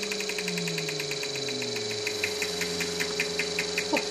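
Small experimental motor-generator running on a workbench: a steady electrical hum under an even, rapid ticking of about five ticks a second, with a few sharper clicks near the end.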